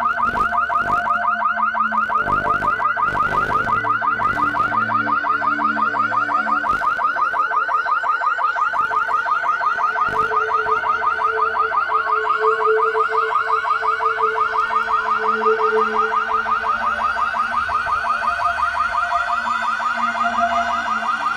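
A loud electronic warble pulsing rapidly and evenly, like an alarm, over low held drone tones, with a clearer middle tone sounding for several seconds midway: horror-film sound design.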